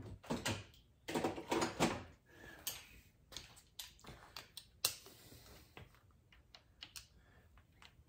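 Metal hand tools being handled: a clatter of knocks in the first two seconds, then scattered sharp clicks and taps as a long-handled wrench is fitted onto a bolt.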